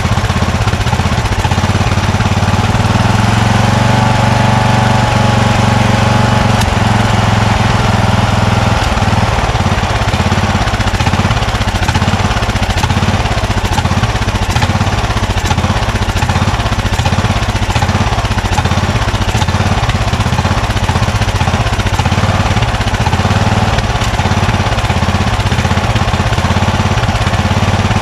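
Craftsman 20 hp lawn tractor engine running steadily while its carburetor is adjusted with a screwdriver. The engine note shifts slightly a few seconds in, then settles.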